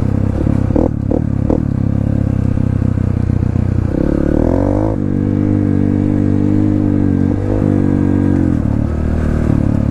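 Dirt bike engine running on the throttle while riding, heard from on the bike. Its pitch climbs about four seconds in and then holds higher, easing briefly near the end, with a few sharp knocks and clatter about a second in.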